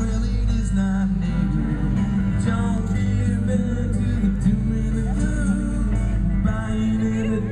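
Live band music over the PA: guitar, bass and a singing voice, playing steadily.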